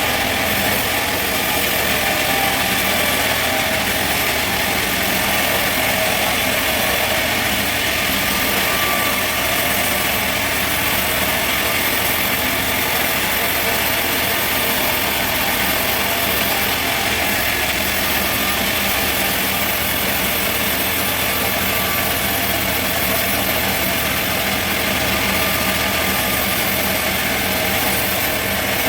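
Sawmill machinery running steadily, a continuous even engine-like drone with no distinct cuts or impacts.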